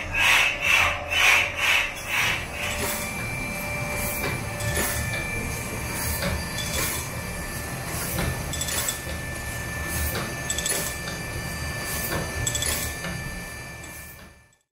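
Belt-driven workshop machinery on overhead line shafting running with a rhythmic swish about twice a second. A couple of seconds in it gives way to a small stationary steam engine running, its valve gear giving a regular clicking beat a little under twice a second. The sound fades out near the end.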